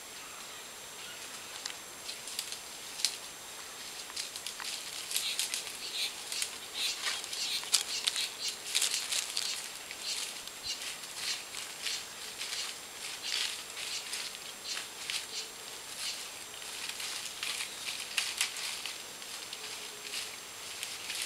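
Dry leaf litter crackling and rustling in quick, irregular bursts as a giant anteater shuffles and forages through it, busiest a few seconds in and thinning out towards the end.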